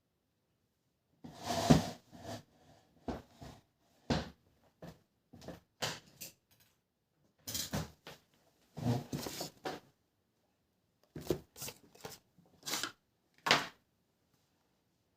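Handling noises from a tablet and its packaging being unboxed: an irregular series of knocks, clicks and short rustles, some louder than others.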